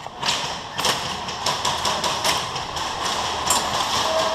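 Irregular sharp clicks and thuds, a few each second.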